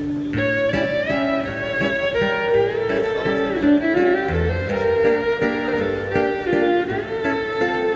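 Instrumental music from a small string ensemble: a violin melody with sliding notes over plucked strings and a bass line, playing continuously.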